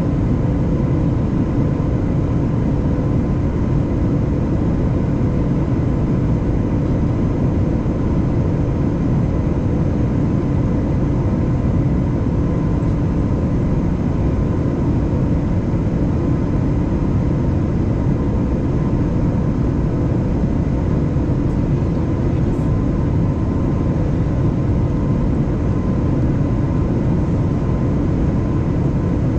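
Steady cabin noise of a jet airliner climbing after takeoff: the turbofan engines and rushing airflow make an even low rumble, with a few faint steady hum tones above it.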